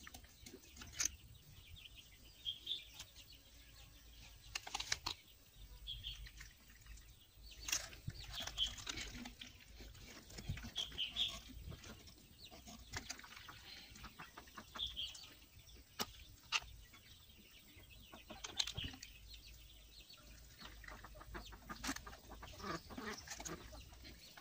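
Faint handling noise: scattered clicks and rubbing as a rubber garden hose is worked over a plastic pipe. Brief bird chirps come every few seconds in the background.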